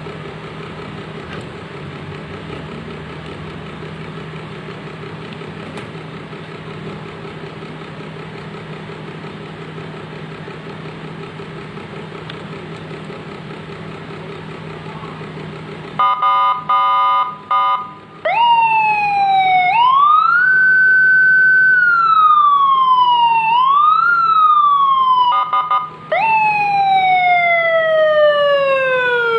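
Electronic motorcycle siren being run through its tones. After about sixteen seconds of a steady low hum, it comes in with a quick stuttering beep pattern, then wails in sweeps that rise fast and fall slowly. Another short stutter falls in the middle.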